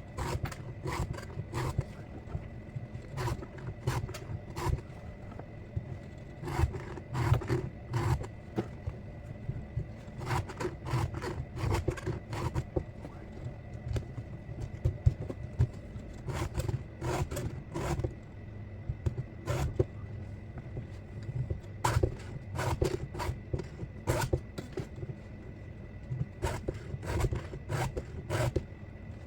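Round file scraping across chainsaw chain cutters in short, sharp strokes, a few strokes at a time with brief pauses between groups: hand-sharpening the chain.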